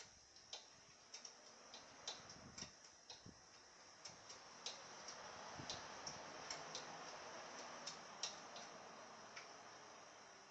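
Oil dripping from a scooter's engine into a pot beneath it while the oil drains during an oil change: faint, irregular ticks about two a second, over a soft hiss that swells in the middle.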